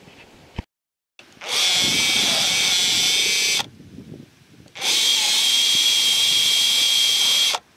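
Cordless drill with a step drill bit boring through the wall of a plastic barrel, running in two spells of about two and three seconds with a steady high motor whine.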